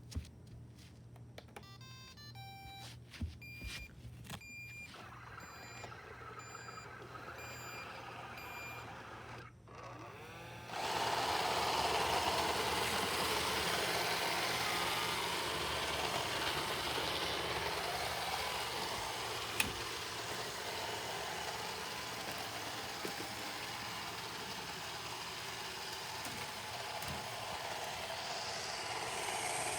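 Roomba Discovery robot vacuum starting a cleaning run: a short beeping tune, then a run of evenly spaced beeps about two a second. About eleven seconds in, its vacuum and brush motors start with a loud, steady whirring noise that carries on, with a single sharp click partway through.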